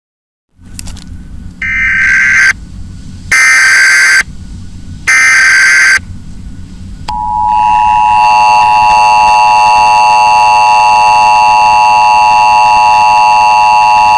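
Emergency Alert System broadcast alert: three loud one-second bursts of the SAME header data tones, then the long steady two-tone EAS attention signal starting about seven seconds in. A low hum of background noise runs underneath.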